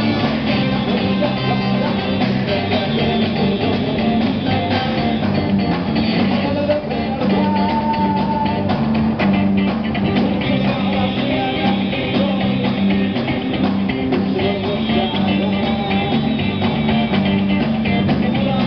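Live rock band with a horn section playing: electric guitars and drum kit with congas, saxophone and trumpet, and a singer's voice.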